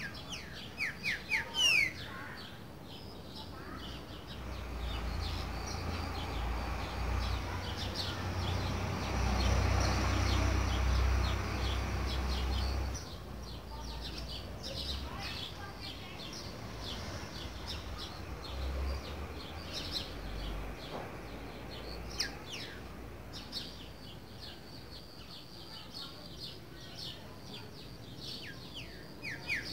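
Green-winged saltator (trinca-ferro) singing its boiadeiro song: a short phrase of loud descending whistled notes about a second in, and again at the very end. In between, a low rumbling noise swells and fades for several seconds, with faint high chirps and ticks throughout.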